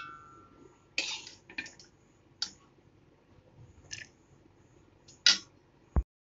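Metal spoon scraping and tapping inside a stainless-steel mixer-grinder jar as soft boiled tamarind pulp is scooped in: a few short, separate scrapes and clicks, and a duller knock near the end.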